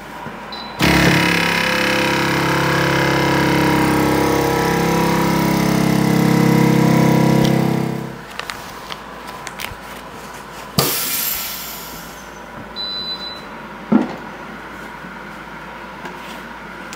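Avid Armor USVX chamber vacuum sealer's pump motor starting about a second in and running steadily for about seven seconds as it evacuates the chamber, then stopping. A few seconds later a click and a short hiss of air let back into the chamber end the cycle, and another click follows as the lid is opened.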